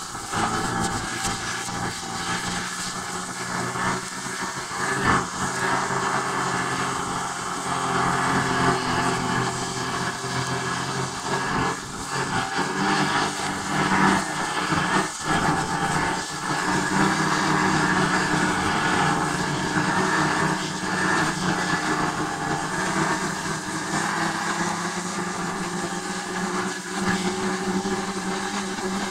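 Steady drone of a running vehicle: a low hum with a hiss over it.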